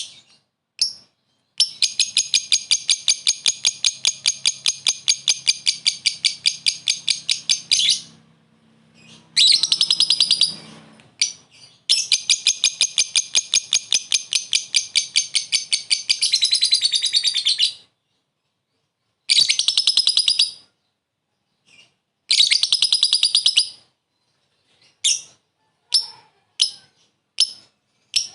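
A lovebird chattering in its 'ngekek' trill, the call kept lovebirds use to call and provoke a rival. It gives long runs of rapid, evenly repeated shrill notes, two of them about six seconds long, and shorter runs between. Near the end come a few short single chirps.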